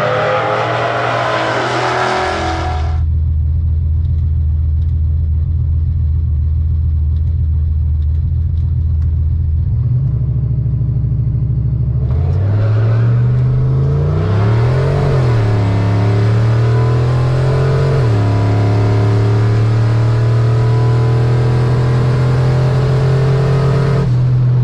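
Drag-racing car engines: a loud high-revving run that cuts off about three seconds in, then a big engine idling steadily with a deep rumble, revved up and down a few times about halfway through before settling back to idle.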